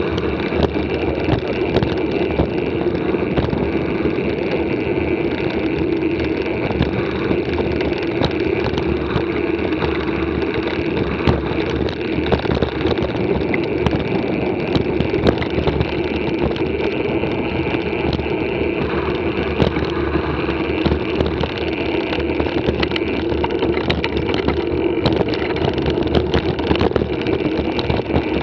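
Mountain bike rolling at speed along a concrete lane, heard through a bike-mounted camera: a steady rush of wind on the microphone mixed with tyre rumble, and small rattles and clicks from the bike throughout.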